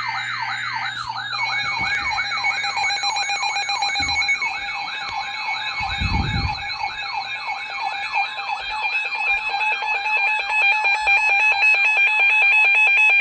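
Emergency Alert System alert tones: a siren-like warbling sweep, about two to three cycles a second at first and quickening to about five toward the end, with steady alert tones joining about a second in. A brief low sound comes about six seconds in.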